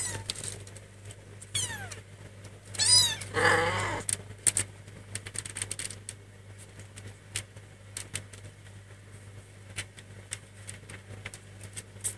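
Cat meowing: three short meows between about one and a half and four seconds in, the first falling in pitch, with many small clicks and rustles as the kittens feed.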